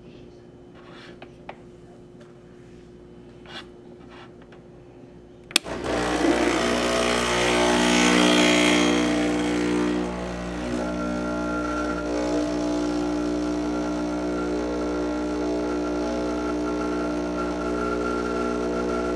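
Breville Dual Boiler espresso machine's vibratory pump switching on with a click about five and a half seconds in and buzzing steadily, with a rushing hiss of fast-flowing water for about four seconds. The hiss then drops away and the pump settles to a slightly quieter, steady hum as the flow is throttled almost closed to hold low bloom pressure of 3–5 bar.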